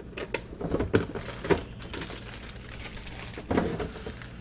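Rummaging in a refrigerator: plastic food containers knocking and plastic bags rustling as a block of cheese is taken out, with a series of sharp clicks and knocks, several in the first second and a half and another cluster about three and a half seconds in.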